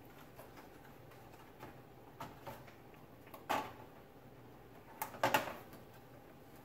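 Handling noise from reassembling an opened electric cooktop: a few separate sharp clicks and knocks as wiring and parts are pressed into place, the loudest a quick double knock about five seconds in.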